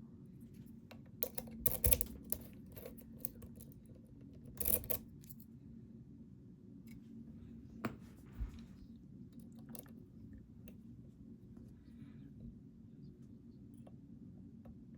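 Small clicks and short scrapes from handling a lock and picking tools, in a cluster about two seconds in and another about five seconds in, then a few single clicks over a steady low hum.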